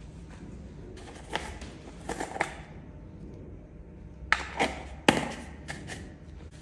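Plastic pomade jar and its lid being handled by gloved hands: a string of sharp clicks and knocks, a few in the first half and a louder cluster from about four seconds in.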